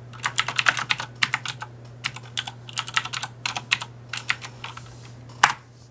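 Typing on a mechanical keyboard with Cherry MX Blue switches: a quick run of clicky keystrokes for about four seconds, then one loud keystroke near the end. A steady low hum runs underneath.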